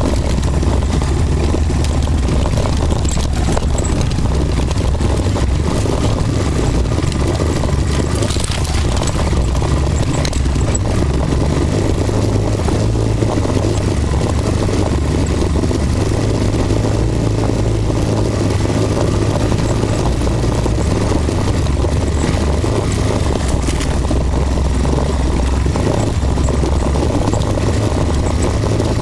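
Off-road vehicle engine running steadily while driving along a dirt trail, heard from on board. The engine note rises about twelve seconds in and settles back down about ten seconds later.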